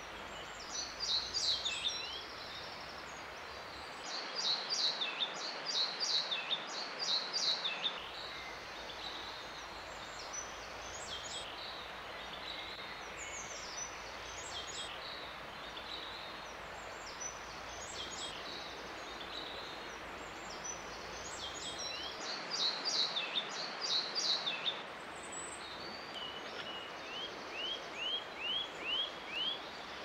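Male pied flycatcher singing: bursts of quick, high notes repeated every few seconds, over a steady background hiss.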